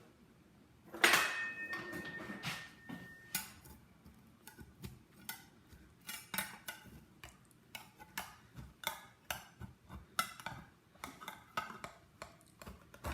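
A spatula clanking and scraping against a baking pan and plates while casserole is lifted out and served. One sharp clank about a second in rings briefly, then come many short scrapes and taps as the sticky casserole is worked loose.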